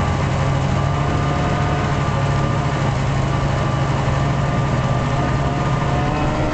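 Arctic Cat snowmobile engine running at a steady pace while under way, a constant low drone.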